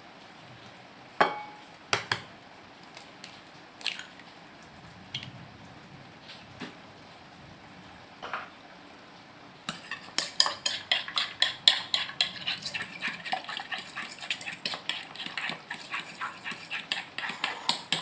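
Fork beating eggs in a ceramic plate: fast, continuous clinking of the fork against the plate starting about ten seconds in. Before that, a few separate knocks and taps as eggs are cracked into the plate, the first with a brief ring.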